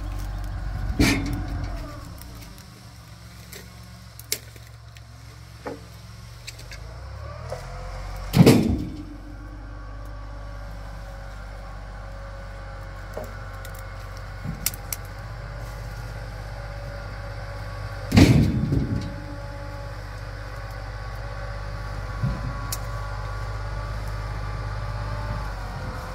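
Kubota tractor's diesel engine running steadily, its pitch rising and falling at times as it revs. Three loud knocks ring out about a second in, at about eight seconds and at about eighteen seconds.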